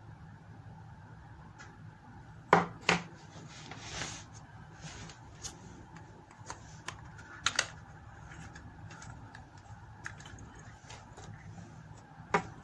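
Small hard RC car parts being handled: scattered sharp clicks and clinks, the loudest a pair about two and a half seconds in, another pair around seven and a half seconds and one near the end, with a brief rustle around four seconds.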